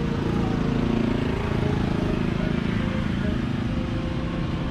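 Street traffic: car and motorbike engines running close by, a steady low rumble.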